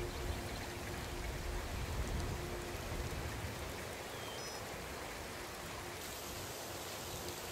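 Steady rushing of water, an even hiss with low rumbles underneath.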